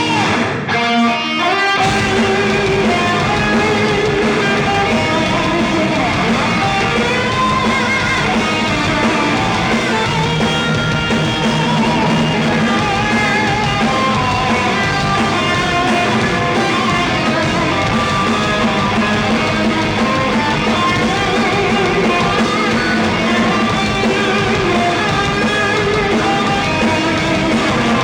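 Live band playing instrumental heavy metal, with electric guitar leading. The bottom end drops out for about a second near the start, then the full band carries on steadily.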